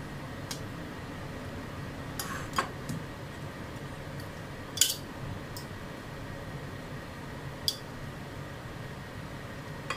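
Metal tongs clicking and tapping against a ceramic bowl and plastic colander while serving rice noodles: a handful of short separate clicks, the loudest about five seconds in, over a steady low hum.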